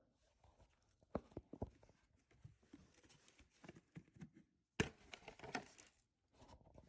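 Faint handling noises: scattered small clicks and taps, with a few louder ones about a second in and again near five seconds.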